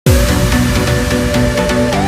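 Electronic background music with a steady beat, opening with a deep bass note that falls in pitch.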